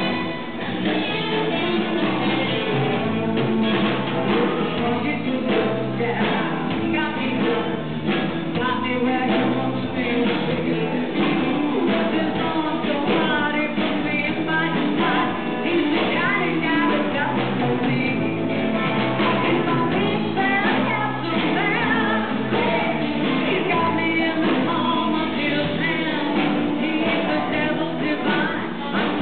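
A live band playing a rock and roll song, with a woman singing lead into a microphone over bass and guitar.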